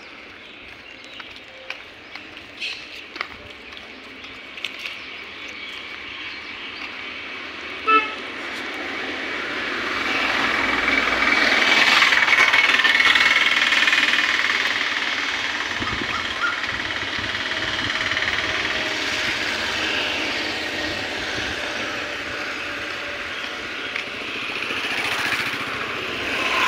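Road traffic: a brief vehicle horn toot about eight seconds in, then a passing vehicle whose noise swells for several seconds and eases off into a steady traffic hum.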